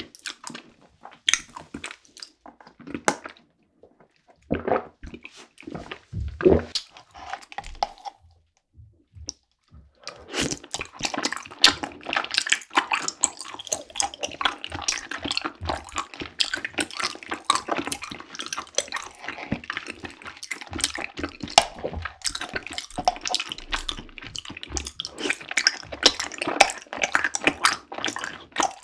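Close-miked drinking of tapioca bubble tea through a straw. Scattered wet mouth clicks and gulps come first, then from about ten seconds in a dense stretch of wet slurping, swallowing and chewing of the tapioca pearls.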